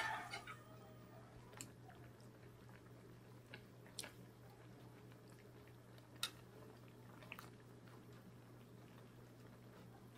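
Faint, scattered clicks of a metal ladle and fork touching a metal pan while glass noodles and vegetables are tossed, over a steady low hum.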